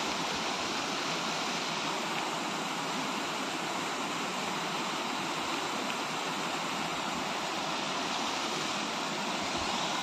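Small waterfalls pouring over rock into a pool: a steady, even rush of water.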